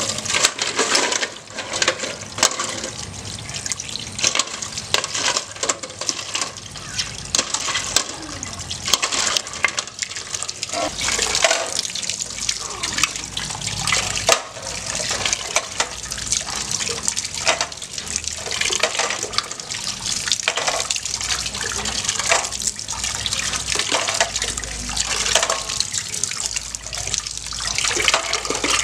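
Tap water running and splashing into a steel pot of African giant snails, with frequent sharp clicks and knocks as the shells are rubbed against each other and the metal pot while they are washed by hand.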